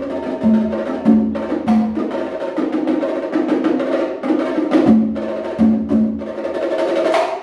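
Percussion duo playing sticks on small drums and other percussion in a fast, dense rhythm, with resonant pitched drum strokes recurring through it. The playing ends on a final stroke near the end and stops abruptly.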